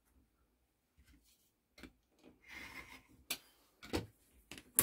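Rotary cutter running briefly through a cotton fabric strip along an acrylic quilting ruler, a short soft rasp about two and a half seconds in, followed by a few sharp clicks and taps of the ruler and cutter being handled on the cutting mat.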